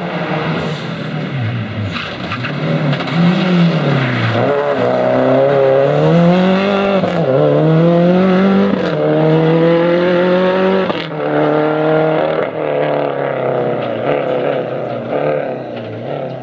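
Subaru Impreza rally car's flat-four engine accelerating hard through the gears, the revs climbing and dropping back at each shift, with a few sharp cracks along the way. It fades near the end as the car drives away.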